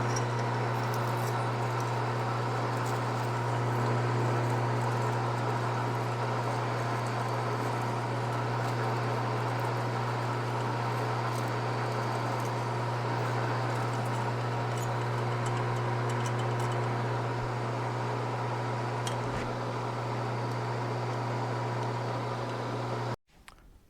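Metal lathe running steadily while a tap-drill bit bores into a steel sleeve blank, a constant motor hum with faint cutting noise. It cuts off suddenly near the end.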